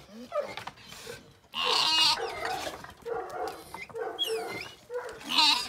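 Lamb bleating repeatedly in high, wavering cries, loudest about one and a half seconds in and again near the end; it is calling for its missing companion.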